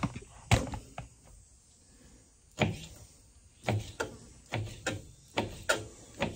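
Knife chopping through a bowfin fillet onto a cutting board: a run of about ten short, uneven knocks as the meat is cut into nuggets.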